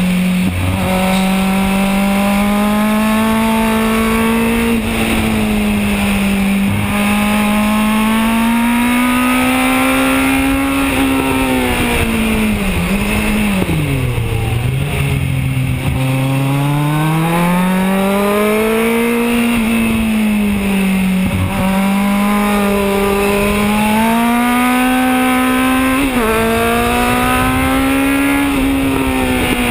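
Kawasaki Z1000's inline-four engine, heard onboard at speed on a race track, pulling up through the revs with brief dips at gear changes. Its note falls lowest about halfway through, then climbs again. Steady wind rush over the microphone.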